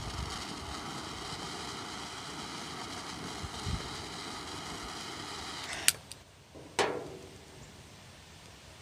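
Butane torch lighter's jet flame hissing steadily as it toasts and lights the foot of a cigar. It cuts off with a sharp click about six seconds in, and a second short sharp sound follows about a second later.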